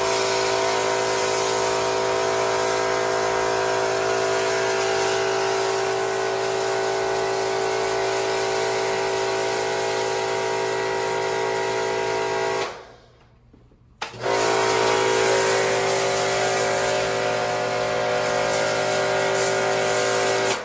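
Electric pressure washer running steadily, its motor and pump humming under the hiss of a foam cannon spraying snow foam. It cuts out about 13 seconds in and starts again a second later.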